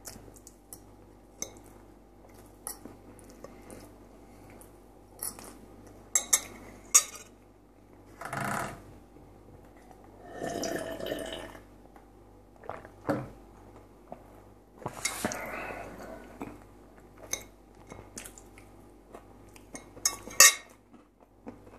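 Close-miked eating sounds: a metal fork clinks and scrapes on a plate in scattered sharp clicks, with chewing of fried potatoes. Near the middle, brine is drunk from a glass for a second or two.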